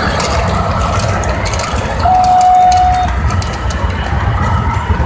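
Large-scale model freight train running along the layout's track, with a steady low rumble and light clicking over the rails. A single steady high tone sounds for about a second, about two seconds in.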